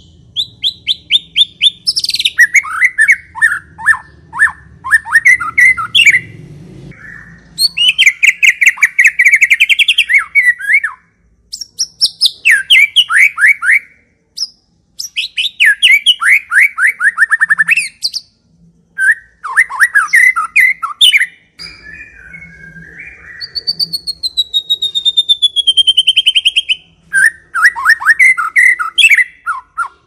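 White-rumped shama (murai batu) singing: loud phrases of rapid repeated notes and trills, broken by short pauses, with one long descending whistle about two-thirds of the way through.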